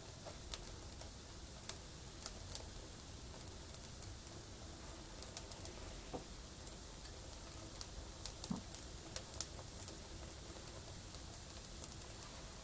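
Wood fire burning in a stove's firebox, crackling with irregular sharp pops from the burning split logs and kindling.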